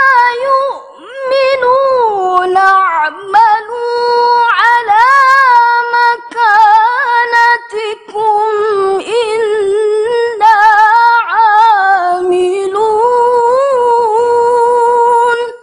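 A woman reciting the Qur'an in melodic tilawah style, one voice holding long notes with rapid ornamented runs and wavering turns. The recitation cuts off just before the end.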